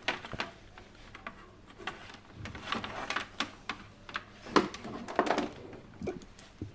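Irregular clicks, taps and rustles of hands handling tools and wires on a workbench.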